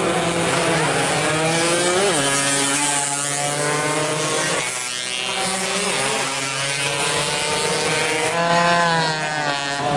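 Several standard two-stroke underbone (bebek) racing motorcycles revving hard as they race past, several engines overlapping. Their pitch climbs as they accelerate and drops sharply as one bike passes about halfway through, then climbs again near the end.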